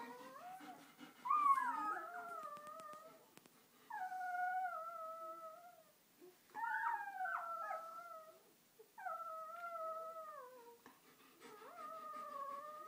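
Day-old German Shepherd puppies crying: a run of high, drawn-out cries, each one falling in pitch, repeating every two to three seconds, with the loudest about a second and a half in.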